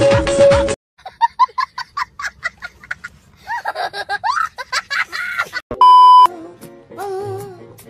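A child laughing hard, first in quick short bursts and then in longer squealing peals. About six seconds in comes a loud steady test-card beep lasting about half a second. Right after it a voice starts singing with a wavering pitch.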